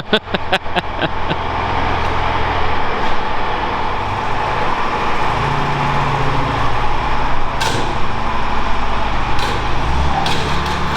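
Heavy vehicle engine running steadily, its low note shifting a couple of times, with a quick run of sharp clicks about six a second at the very start.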